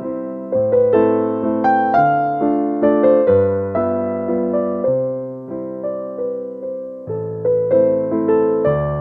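Background music: a slow piano tune, each note struck and left to fade, over low sustained chords.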